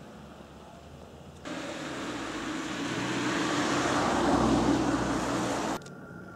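A road vehicle passing, a broad tyre-and-engine rush that cuts in about one and a half seconds in, swells to its loudest past the middle and cuts off abruptly near the end. Before it there is only a faint outdoor hiss.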